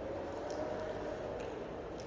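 Steady background hum of a large, empty underground station hall, with a faint wavering tone and a few light ticks.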